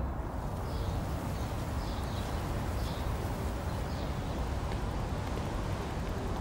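Outdoor ambience: a steady low rumble of wind and distant traffic, with faint short high chirps about once a second during the first few seconds.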